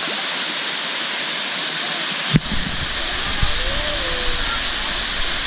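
Waterfall rushing steadily, a dense even roar of falling water. A single sharp knock on the microphone sounds about two seconds in.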